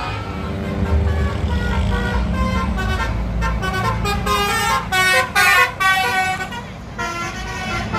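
Tour bus's telolet basuri horn playing a tune of stepped notes, loudest about five to six seconds in, over the low rumble of the bus engine.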